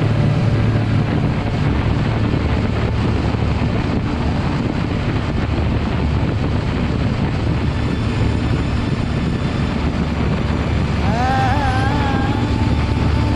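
Motorcycle engine running steadily at motorway cruising speed under heavy wind rush on the microphone. Near the end a wavering tone with overtones comes in and then holds a steady pitch.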